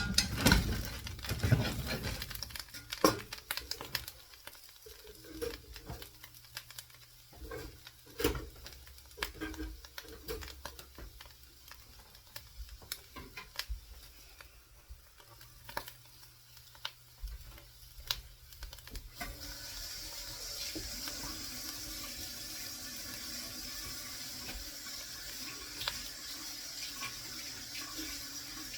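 Scattered clicks and knocks of kitchen utensils and cookware. About two-thirds of the way through, a water tap starts running steadily into a sink.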